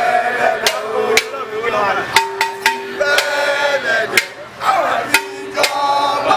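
Voices chanting or singing in a traditional Yoruba festival song, punctuated by sharp percussive strikes every half second to a second.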